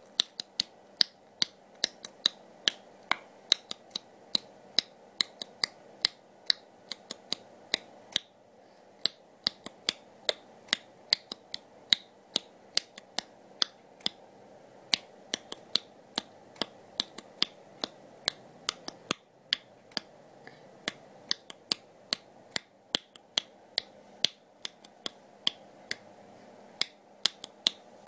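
Sharp, irregular clicks, about three or four a second with a few short pauses, over a faint steady hum.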